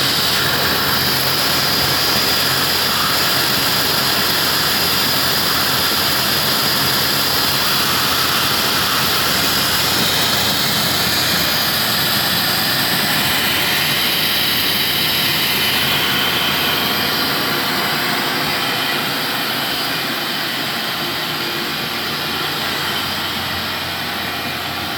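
Milling machine running and cutting a carburetor base: a steady high-pitched whine over a hiss, easing a little in level in the last third.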